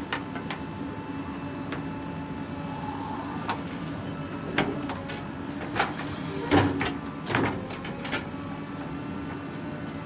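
JCB 3DX backhoe loader's diesel engine running steadily under load, with a string of sharp knocks and clanks in the second half, loudest about two-thirds through, as the bucket swings over and dumps soil into the steel tractor trolley.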